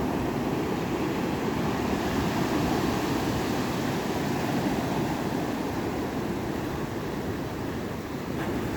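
Ocean waves washing in a steady surf.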